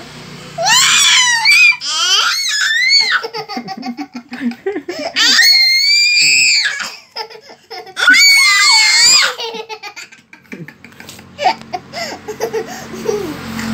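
A baby and an older sibling letting out high-pitched squealing shrieks, four loud bursts with the pitch swooping up and down. Softer baby babbling near the end.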